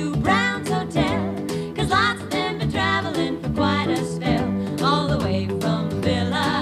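Background music with a steady beat and a melody line running over it.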